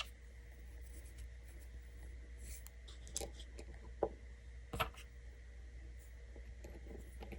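Faint scratching and a few light clicks of small Schlage deadbolt parts being handled as the spring and a small retaining pin are fitted back into the lock.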